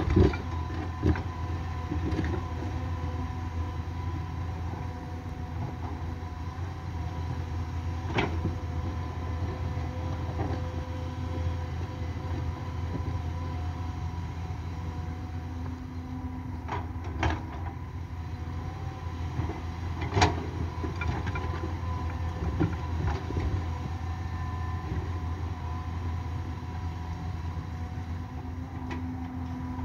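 Hydraulic crawler excavator running steadily while digging, a constant low engine hum with a few steady higher tones, and a few sharp knocks along the way.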